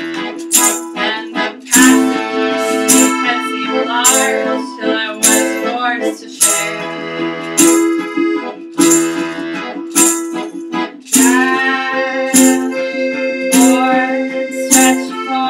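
Live acoustic folk music in an instrumental passage: held accordion chords over a regularly strummed string instrument.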